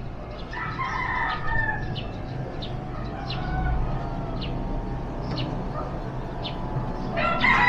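Rooster crowing: one crow starting about half a second in and lasting over a second, dropping in pitch at its end, and another crow near the end.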